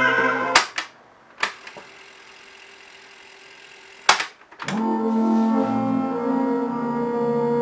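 Keyboard music with a sustained organ-like tone playing back from a Tascam Portastudio 414 MK II cassette recorder cuts off with the click of a transport key about half a second in. A faint tape hiss and a single click follow. Two more key clicks come a little after four seconds, and the music starts again just before five seconds.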